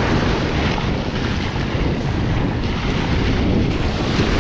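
Wind buffeting the microphone over small surf waves washing up onto the beach, a steady rushing noise.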